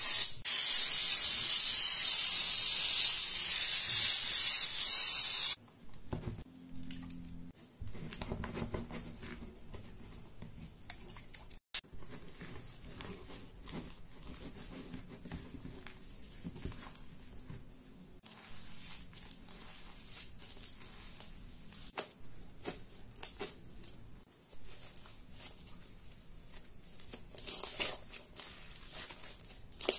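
Aerosol can of shaving foam sprayed in one long hiss lasting about five seconds. Then come quieter scraping and stirring sounds as the foam is mixed in a bowl, and soft squishing as hands knead the fluffy slime near the end.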